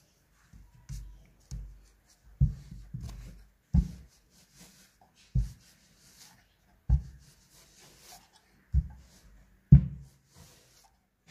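Electric clothes iron pressed down and moved over a banknote on a carpeted floor: a string of dull thumps at uneven spacing, roughly every second and a half, with faint rubbing between them.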